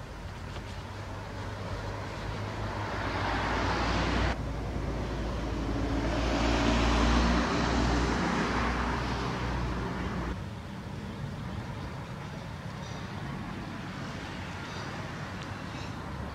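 Road traffic: a passing car's tyre and engine noise swells and cuts off abruptly about four seconds in. A second, louder pass follows with a low engine hum, peaks about seven seconds in and cuts off abruptly near the ten-second mark, leaving a quieter steady background of traffic noise.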